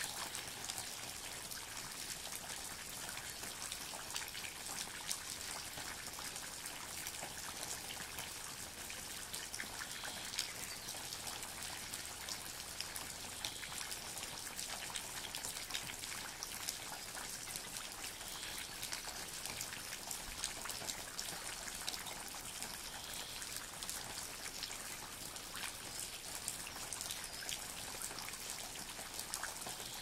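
Steady rain falling, with a dense patter of individual drops throughout.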